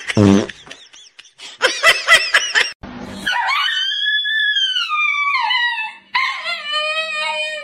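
A few short barks about two seconds in, then a husky-type dog howling in long drawn-out calls. The first howl rises and then slides down in pitch. A lower, steadier howl starts about six seconds in.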